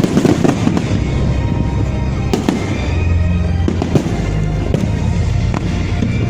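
Fireworks going off in a display, with repeated bangs and crackling, one sharp bang about two and a half seconds in, over loud music with a heavy bass.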